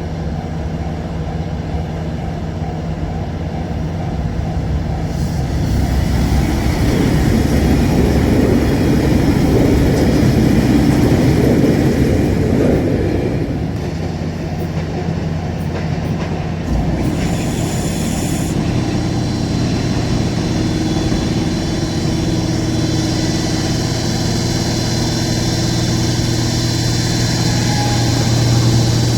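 THE ROYAL EXPRESS cruise train moving slowly from the siding toward the platform, a continuous low rumble of the train. It swells about five seconds in, eases off near the middle, and settles into a steady hum.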